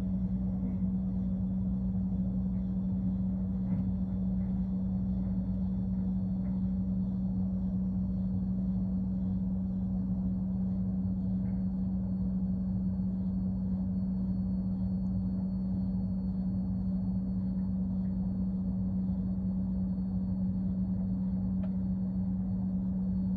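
Refrigerator humming steadily, a constant low drone with a few faint ticks.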